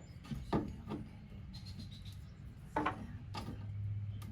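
A plywood wall panel knocking and clunking against the van's wall frame as it is fitted: a few sharp knocks, with a low hum swelling near the end.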